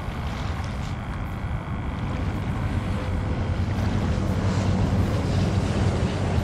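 Steady low rumble of wind on the microphone with a distant engine droning under it, growing a little louder over the last few seconds.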